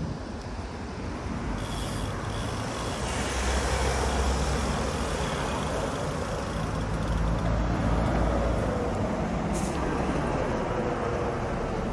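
Road and traffic noise heard while riding along a city street: a steady rumble of tyres on asphalt with wind hiss, growing louder about four seconds in.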